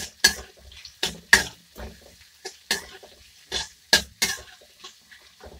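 Spatula knocking and scraping against a metal kadai as sliced onions are stirred in hot oil: sharp, irregular strokes, about two a second.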